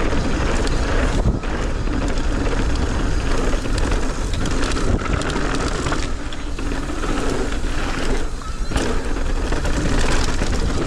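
Wind rushing over the camera microphone and a mountain bike's tyres rolling down a dirt trail, with the bike rattling over bumps. The noise dips briefly twice, about a second in and again near the end.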